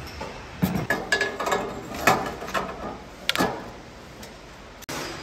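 Hand assembly of electric scooter parts: an irregular run of sharp metallic clinks and knocks, one with a short ringing tone about a second in, then quieter workshop background.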